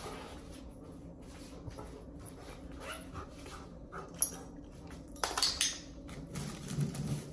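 Golden retriever setting a red ring onto a metal ring-stacking post, with a few sharp clacks about five and a half seconds in as the ring lands on the post's metal base. The dog makes a soft low sound near the end.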